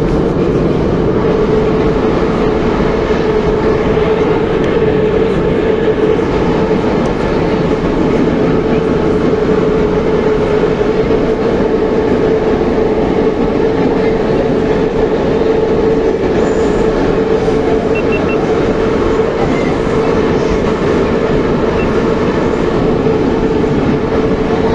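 Moscow Metro 81-717/714 subway train running steadily, heard from inside the car: a loud, even rumble of wheels and running gear with a constant hum under it.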